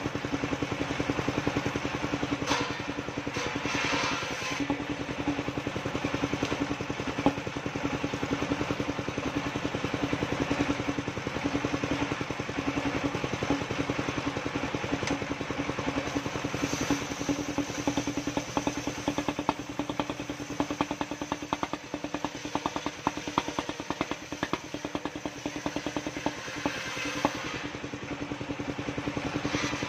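Engine of a portable circular-saw sawmill running steadily as timber is fed through the blade, with a few brief clatters of wood being handled.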